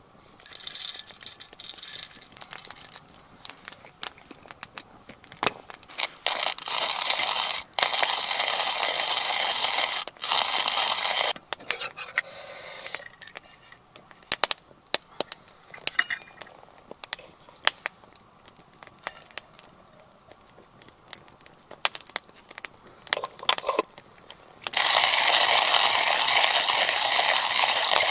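Wooden hand-cranked coffee mill grinding coffee beans in several spells of dense grating, the longest near the end. Sharp crackles from a wood fire in a metal fire box come between the spells.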